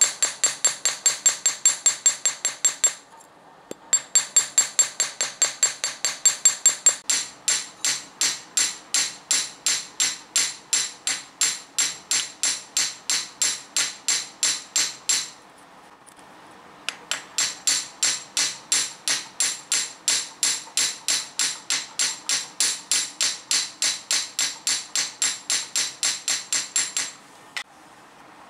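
Hammer cold-peening the flattened tip of a bent steel-wire blowgun dart on a small steel anvil: fast, even blows of about three a second, each with a bright metallic ring. The hammering pauses twice briefly and stops shortly before the end. The repeated cold hammering work-hardens the soft wire's edge.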